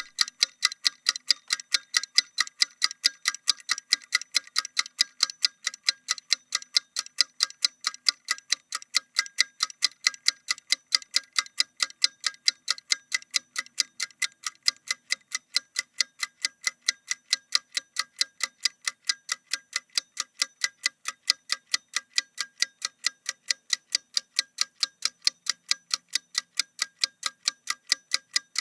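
Timer clock ticking steadily: rapid, evenly spaced sharp ticks, several a second, without a break.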